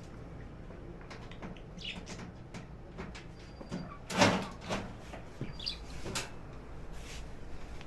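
Scattered clicks and knocks from a washing machine being handled for disassembly, with one sharp knock about four seconds in and a few faint squeaks, over a steady low hum.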